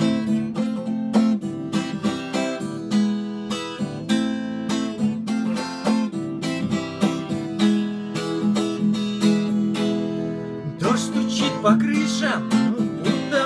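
Acoustic guitar strummed in a steady rhythm, chord after chord. Wavering higher notes join in about eleven seconds in.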